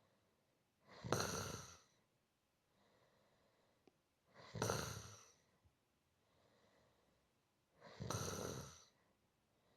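A person snoring in a slow, even rhythm: three snores about three and a half seconds apart, each lasting about a second, with a fainter breath between them.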